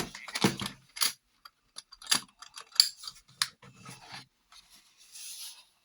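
Small storage cases being handled and opened: latches clicking, cases knocking together and a short scraping slide, as a smaller case is taken out of a larger one.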